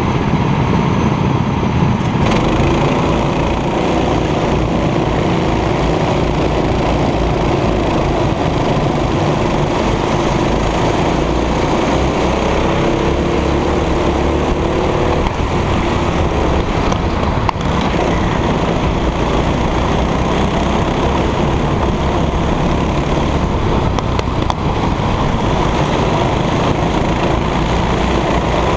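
Go-kart engine running hard at racing speed close to the microphone, with other karts' engines around it and heavy wind buffeting on the microphone. The engine note climbs for a few seconds around the middle.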